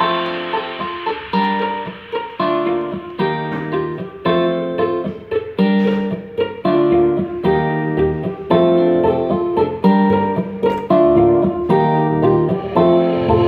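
Plucked guitar music played back through a DIY Bluetooth speaker and recorded on a phone: a steady rhythm of picked notes, with little top end.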